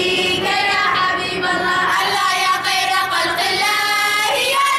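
A group of girls singing a nasheed together into microphones.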